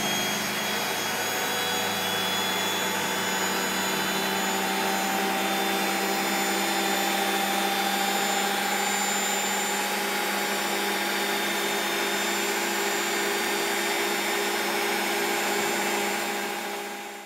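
Miele W 327 front-loading washing machine on its spin cycle, drum spinning at high speed with a steady, even whir and hum. It fades out near the end.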